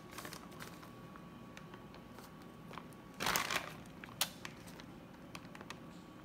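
Plastic bag of shredded cheddar crinkling as a hand reaches in for cheese, with soft scattered rustles and one louder crinkle about three seconds in, followed shortly by a sharp click.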